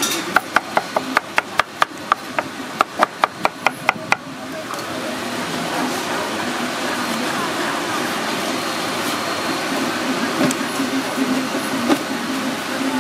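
Chinese cleaver chopping a guava into slices on a wooden cutting board: a quick run of sharp knocks, about four a second with a short pause, stopping about four seconds in.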